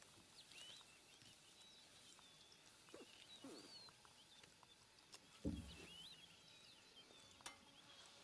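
Near silence with faint bird calls, short curling chirps and whistles, scattered throughout. A single low thump comes about five and a half seconds in, and a sharp click near the end.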